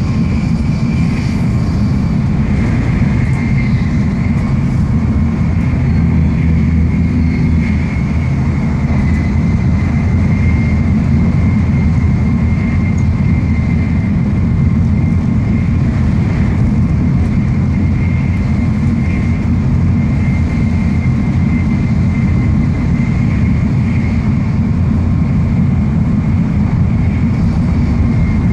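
Steady running noise inside the passenger cabin of an N700-series Tokaido Shinkansen at speed: a deep, even rumble of wheels and air, with a thin steady high whine above it.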